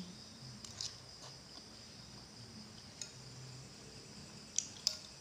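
A metal spoon tapping a few times against a glass bowl while eating, two sharper clicks near the end, over a steady high chirr of crickets.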